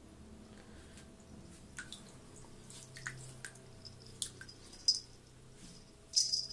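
Water dripping irregularly from a bathroom washbasin tap into the basin, over a faint steady hum. A louder, brief splash or clatter comes near the end.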